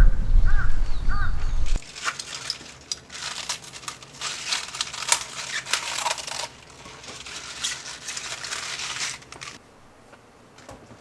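A crow cawing three times in quick succession over a low rumble. Then about seven seconds of dry crackling and crunching that stops shortly before the end.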